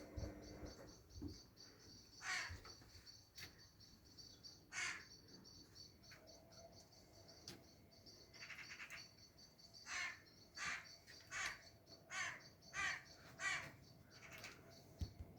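Harsh, rasping corvid calls repeated at irregular intervals, coming in a quick run of about six calls in the second half, over a continuous high, rapid trill in the background.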